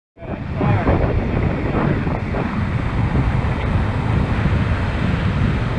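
Wind buffeting the microphone over the steady wash of ocean surf breaking on a beach. It cuts in suddenly and stays loud.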